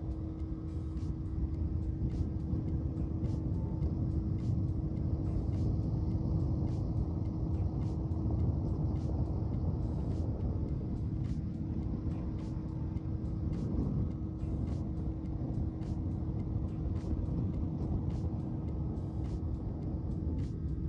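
Boat under way: its motor running at a steady speed with a constant low rumble and a steady hum, mixed with wind and water rush, and faint light ticks throughout.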